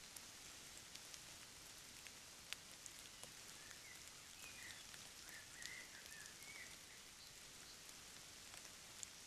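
Near silence: steady faint hiss from a trail camera's microphone, with scattered faint ticks. A few faint, short high squeaks come about four to six and a half seconds in.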